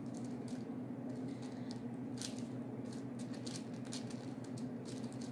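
Fingers pressing and shaping soft polymer clay on a tabletop: scattered faint rustles and small clicks over a steady low background hum.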